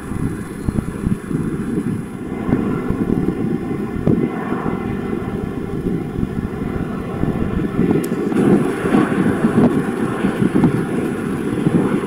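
Jet engines of airliners heard at a distance: a steady low noise with a faint whine above it, with wind buffeting the microphone.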